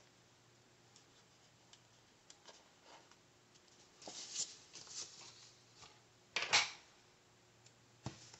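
A paper sticker sheet being handled and shifted: light rustling and crinkling, loudest in a short burst a little past the middle, with a small sharp click near the end.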